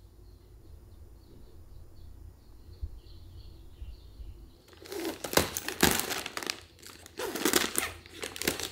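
Plastic packaging crinkling and rustling in several loud bursts from about halfway through, after a few seconds of faint low hum, as a kimchi bag is handled and opened.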